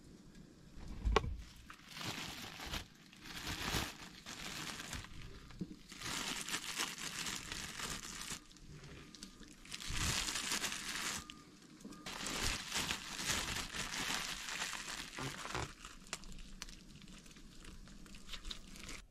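Thin plastic bag and disposable plastic gloves crinkling and rustling in irregular bursts as they are handled, with one sharp knock about a second in.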